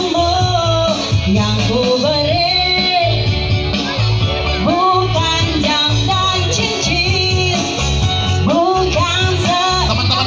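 A song with a sung vocal line over a steady, pulsing bass beat, played loud.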